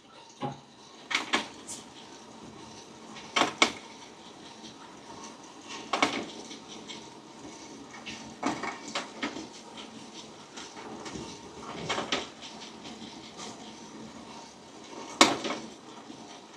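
A series of separate metallic clicks and knocks, about ten spread over the stretch, from handling the sample trier of a Kaleido M2 Sniper coffee roaster to check the colour of the beans mid-roast. Under them runs the roaster's steady low running noise.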